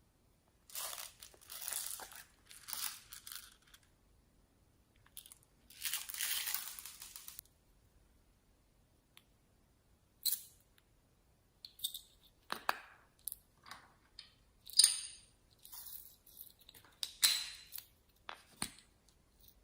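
Slime being squeezed and pressed by hand, making crunchy, crackling squishes. It starts with several crackly stretches of a second or so, then turns into many short, sharp pops and clicks.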